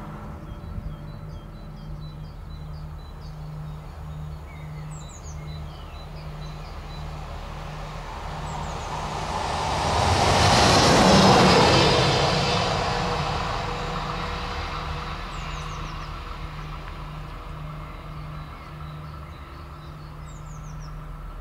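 Deutsche Bahn class 101 electric locomotive running light past on the track: the rush of its wheels and running gear swells to its loudest about halfway through, then fades as it draws away.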